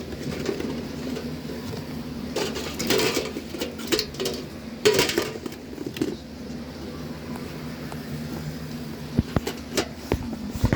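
Fidget toys and squishies being handled and dropped into a bucket: several short bursts of rustling and a few sharp clicks and knocks, over a steady low hum.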